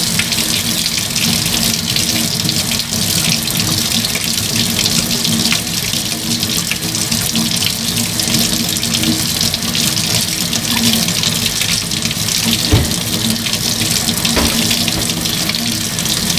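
Water running steadily from a sink tap into the basin while a puppy is washed under it, with a couple of brief soft knocks late on.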